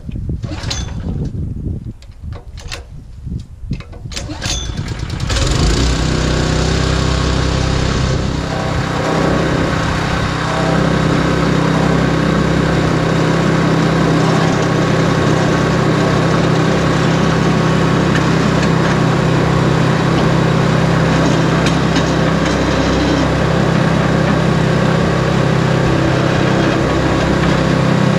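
Supersplit log splitter's small gas engine being pull-started: a few short rattling strokes, then it catches about five seconds in and runs steadily.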